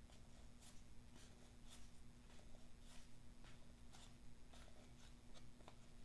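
Near silence with faint clicks of basketball trading cards being flipped one by one by hand, about two a second, over a faint steady hum.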